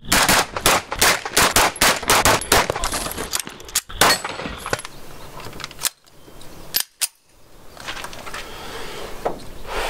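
A fast string of handgun shots, about a dozen in the first three seconds, then a single loud shot about four seconds in and a few fainter shots later.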